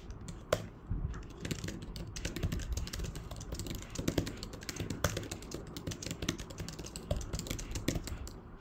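Fast typing on a Huawei Magnetic Keyboard: a rapid, uneven run of key clicks, with a few louder keystrokes among them.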